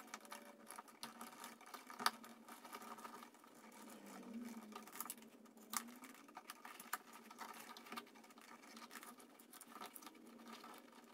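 Faint handling noise of electrical wires being folded and pushed into a metal wall box, with the plastic thermostat power base being handled: scattered small clicks and rubbing, the sharpest click about two seconds in.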